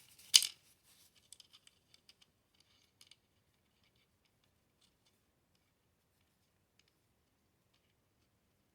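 One sharp click about half a second in, then a few faint clicks and scrapes as the small metal parts of an AR safety selector are handled and fitted.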